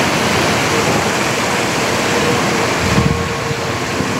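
Water spilling down the tiers of a stepped stone fountain into its pool: a steady rush of falling and splashing water.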